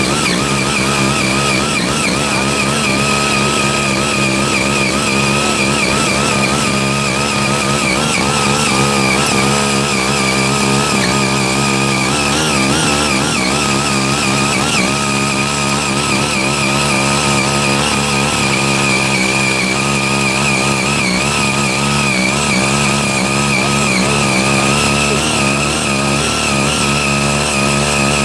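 Small 5 hp engine of a CY80 mini rotary tiller running steadily under load while its six rotary tines work the soil.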